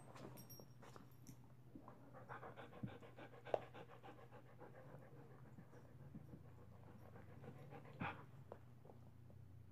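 A dog panting faintly, with a few short clicks and rustles from the dogs nuzzling, over a low steady hum.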